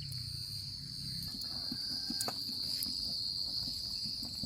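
Steady, unbroken high-pitched chirring of an insect chorus, with a few faint ticks underneath.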